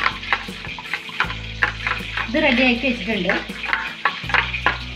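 A metal spoon stirring a thin sauce in a steel bowl, with repeated clinks and scrapes against the bowl's sides.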